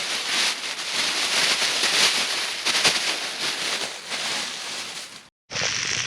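Venison steaks sizzling in butter in a hot cast iron skillet over campfire coals: a loud, steady frying hiss full of small crackles and pops.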